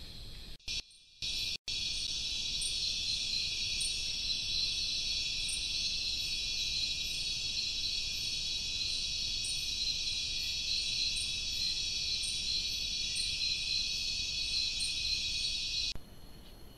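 Dense, steady, high-pitched chorus of forest insects, with a faint ticking above it. It starts suddenly about a second and a half in and cuts off shortly before the end.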